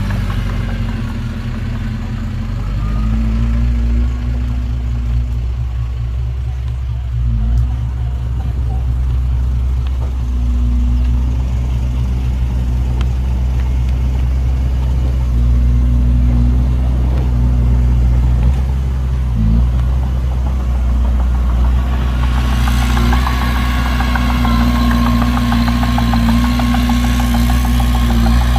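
Heavy diesel engine of construction machinery running steadily with a low drone, growing louder and busier about three-quarters of the way in.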